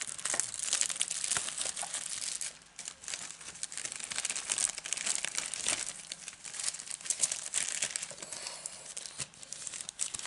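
Clear plastic packaging crinkling and rustling as it is handled and opened, with a short lull about two and a half seconds in.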